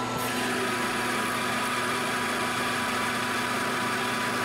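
Metal lathe taking a dry heavy-feed turning cut on a 1144 Stressproof steel bar with a carbide insert, at 0.025 in depth of cut and 0.022 in per revolution, hot enough to throw blue chips. The machine runs with a steady hum and whine, and the hiss of the cut sets in just after the start and holds even.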